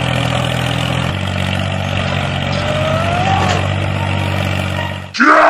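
Tractor engine running steadily, its low note shifting slightly about a second in. Just before the end a loud groan cuts in.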